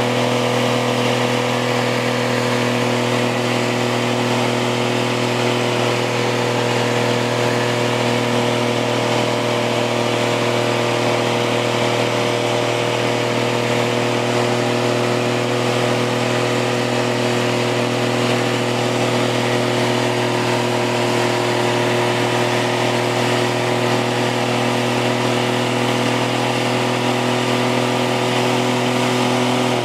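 Pickup truck engine held at steady high revs during a burnout, one constant pitch throughout.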